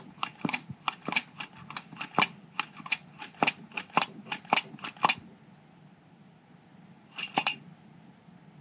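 Hand-held Pittsburgh brake bleeder and vacuum pump being squeezed over and over, clicking about three to four times a second for about five seconds, then stopping, with a brief pair of clicks about seven and a half seconds in. The pump is pulling vacuum on the N54's rear wastegate actuator to test whether the wastegate closes fully and holds.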